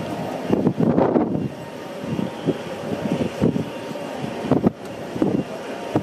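Wind buffeting the microphone in irregular gusts, over a steady background hum.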